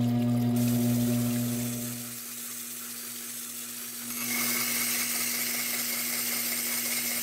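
Stained-glass grinder with a water-fed diamond bit running with a steady hum. About four seconds in, a hiss with a thin high whine joins as a piece of glass is pressed against the wet bit.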